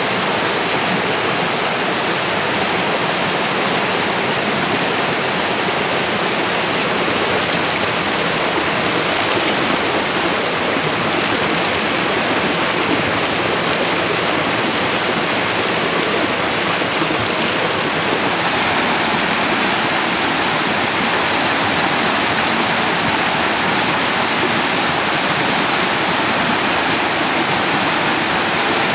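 Stream water rushing in a steady, unbroken wash.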